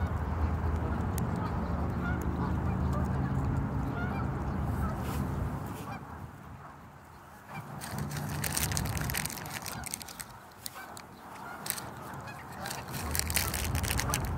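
Canada geese honking close by, with low rumbling through the first half and again near the end, and a run of sharp clicks and rustles in the second half.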